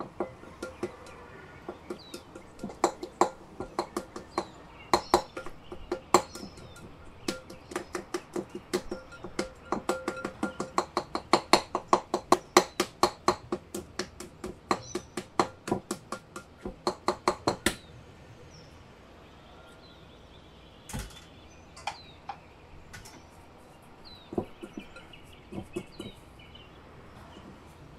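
A utensil clinking against a glass mixing bowl in a quick rhythm, about three clinks a second, as a cauliflower-crust mixture of riced cauliflower, egg and cheese is stirred. The clinking stops about two-thirds of the way through, leaving a few soft knocks as the mixture is worked by hand, with faint bird chirps.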